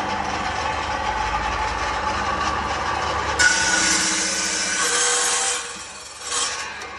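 Ryobi four-blade tenon cutter running steadily, then cutting into wood for about two seconds starting about three and a half seconds in, with a shorter burst of cutting near the end before the machine runs on more quietly.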